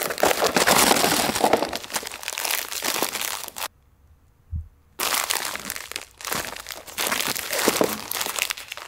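Crinkly white packaging pouch around an O2 sensor being handled and pulled at one-handed: a dry crackling rustle. It stops for about a second a little before the middle, then starts again.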